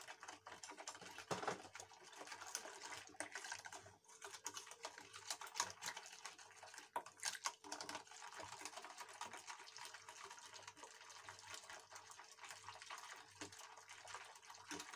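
Wire whisk stirring a milk-and-cocoa mixture in a stainless steel saucepan: quick, irregular clicks of the wires against the pan with light liquid sloshing. At the very start, the last of the milk is poured in.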